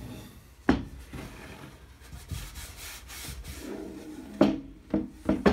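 Cloth rubbing wax onto the edge of a wooden cradled painting board, with knocks as the wooden board is handled against the table: one sharp knock about a second in and several louder knocks near the end as it is set down flat.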